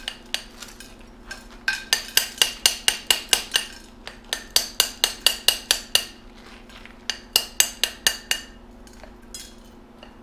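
Quick metallic tapping: a crescent wrench, used as a hammer, strikes a freshly cast copper bar to chip the glassy flux off it. The ringing taps come in runs of about seven a second, separated by short pauses, with a last few taps near the end.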